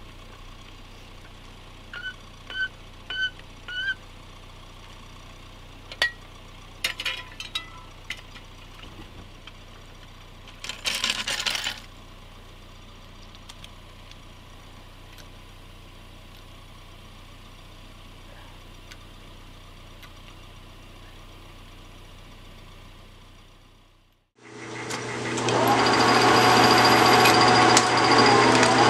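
A metal lathe starts up about 24 seconds in and runs steadily, turning an aluminum spacer; this is by far the loudest sound, a constant machine noise with a few steady tones. Before it, a quieter stretch of hand work on a car wheel: four short squeaks, some clicks and knocks, and a noisy burst lasting about a second near the middle.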